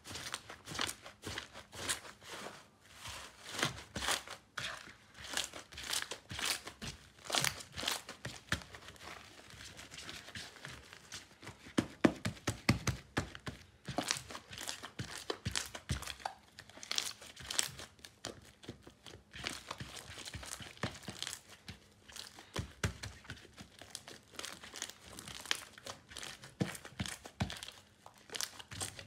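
Hands tearing up, squeezing and kneading a thick slab of slime, giving a dense, irregular run of small crackles and clicks.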